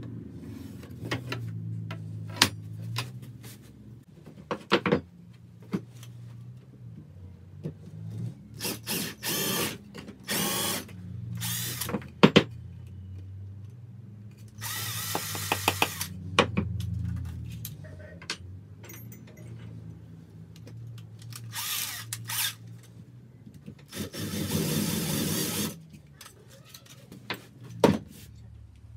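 A cordless drill is run in about six short bursts as it bores into a small wooden block, the longest burst lasting about a second and a half. Sharp knocks and clicks come between the bursts.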